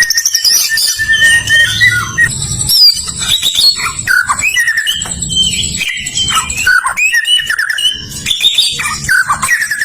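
White-rumped shama singing: a rapid, varied string of loud whistled notes, slurs and trills, with a low rumble underneath in stretches.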